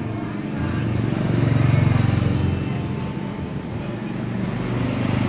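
A motor vehicle engine running, growing louder to a peak about two seconds in and then fading, as it passes by.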